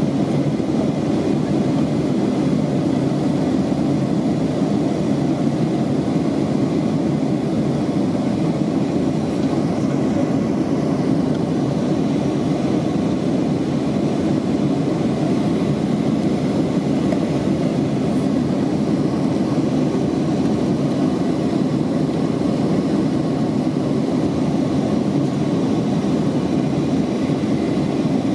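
Steady cabin noise of a Boeing 757-28A in flight, heard from a seat over the wing: the even, deep drone of its Rolls-Royce RB211 engines and the airflow past the fuselage.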